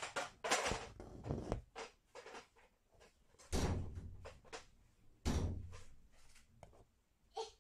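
Needle and embroidery thread drawn through fabric stretched taut in an embroidery hoop: an uneven series of short scratchy pulls and dull thumps on the drum-tight cloth, two of them louder near the middle.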